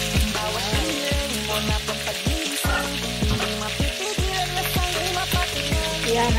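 Chicken pieces sizzling as they fry in their own fat, with no oil, in a stainless-steel Saladmaster electric skillet. Background music with a steady beat plays over it.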